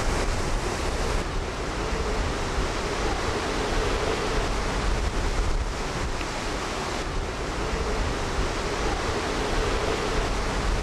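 Strong storm wind buffeting the camera microphone: a steady rushing noise with heavy low rumble.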